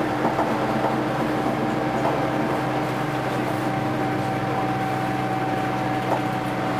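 Vintage double-decker bus under way, heard from inside: a steady engine and drivetrain drone with two constant whining tones and a few small rattles.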